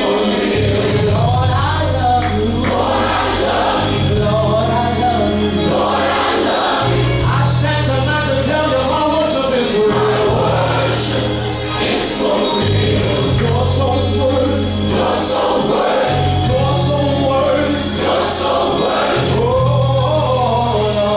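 Gospel song with a choir singing over sustained bass notes that change every second or two, with occasional cymbal hits.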